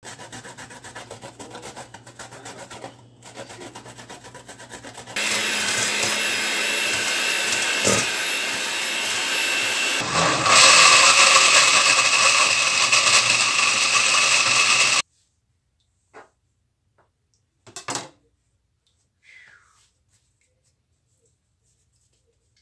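Fresh coconut scraped on a metal box grater, a rapid rasping, for about five seconds. Then a countertop blender starts suddenly, grows louder after a brief dip about ten seconds in, and cuts off abruptly, leaving near silence with a few faint taps.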